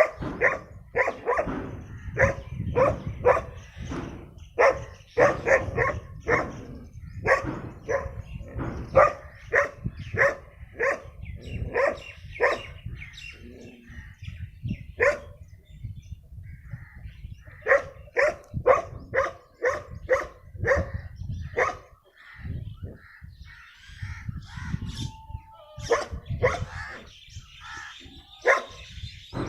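A dog barking over and over, about two barks a second, with a short break around the middle. Bird calls mix in during the later part.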